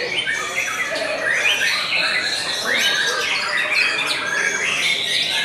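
White-rumped shama (murai batu) singing a rapid, varied, unbroken song of whistles and chatters, with other songbirds singing over it.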